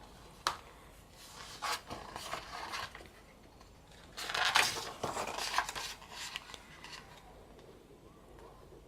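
Paper and cardboard album parts being handled: a few light taps and rustles, with a longer, louder rustle about four seconds in.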